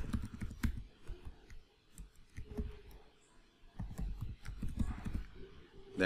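Typing on a computer keyboard: a quick run of keystrokes in the first second, a few single clicks, then a second run about four seconds in.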